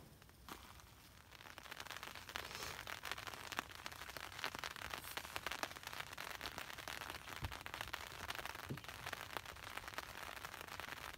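Faint, dense crackling rustle of handling inside a tent, many small irregular clicks, starting about a second in.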